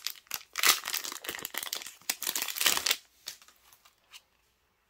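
Clear plastic cellophane packet crinkling as it is handled for about three seconds, then a few faint ticks.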